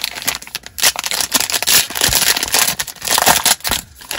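Plastic wrapper of a trading-card pack being torn open and crinkled by hand: a dense, loud crackling that dies away near the end.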